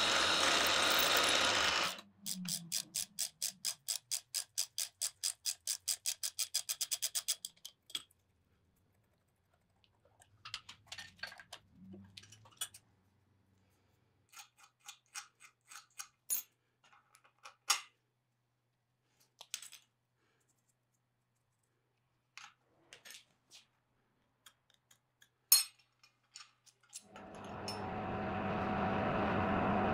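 Drill press drilling through a steel rod, stopping about two seconds in. A fast run of evenly spaced clicks follows and speeds up, then scattered light taps and clicks of small metal parts being handled. Near the end a machine starts and runs steadily.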